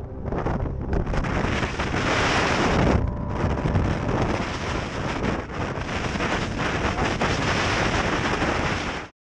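Wind buffeting the microphone in a loud, steady rush. There is a short break about three seconds in, and the sound cuts off abruptly at the end.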